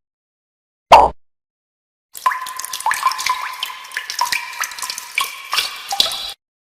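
A short single knock about a second in, then about four seconds of water sounds: a busy stream of quick drips and splashes that stops abruptly.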